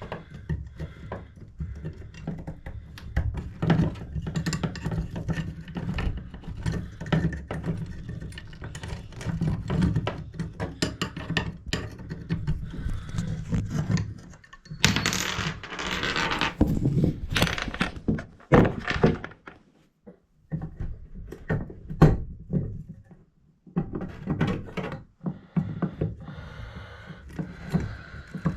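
Metal clinks, knocks and scraping from hand-working a bathtub diverter selector knob loose, with a few seconds of rushing hiss about fifteen seconds in.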